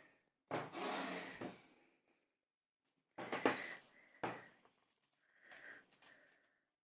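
A knife cutting a piece off a pressed, boiled appetizer roll: a short scraping cut, then two sharp knocks of the knife on the board, and a faint rustle near the end.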